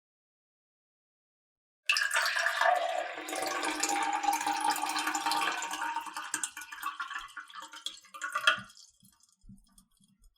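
Water poured into a glass. The stream starts suddenly about two seconds in and runs steadily, its ringing note rising in pitch as the glass fills. It stops near the end, followed by a few last faint drips.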